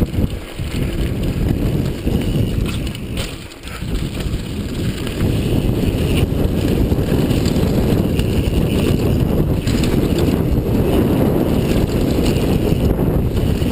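Wind buffeting the camera microphone and mountain bike tyres rumbling over a dirt trail at speed, growing louder and steadier about four seconds in as the bike picks up pace.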